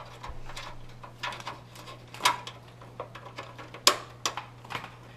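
Irregular light clicks and knocks of hands handling computer parts and their packaging, the sharpest about two and four seconds in, over a low steady hum.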